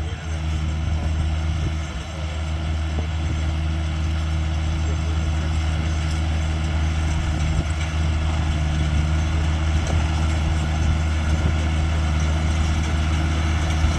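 Engine of a small horse-drawn round baler outfit running steadily, an even low drone that holds its pitch.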